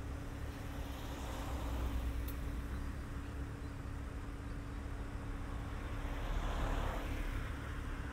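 Street traffic ambience with a steady low hum, where vehicles swell past twice: about two seconds in and again near the end.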